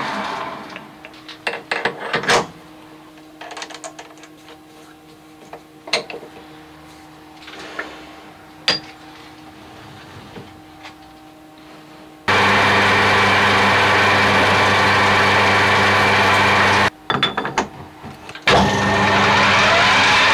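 Metal lathe turning a steel bar, then running down and stopping. Clicks and knocks of tooling being handled follow. About twelve seconds in, the lathe starts and runs steadily with a low hum. It stops briefly near the end amid a few knocks, then starts again with a rising whine as it comes up to speed.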